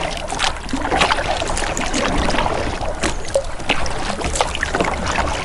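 Double-bladed kayak paddle dipping into the water stroke after stroke, with splashes and drips.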